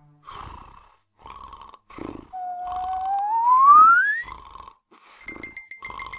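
Cartoon snoring: short rough snores about once a second, alternating higher and lower. In the middle a loud whistle-like tone glides steadily upward, and a rapid, even high ticking starts near the end.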